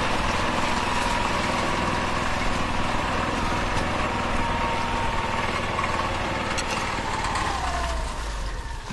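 Small utility vehicle's engine running steadily as it carries the camera down a dirt trail, heard from on board. Near the end a whine in it falls in pitch, and the sound then cuts off suddenly.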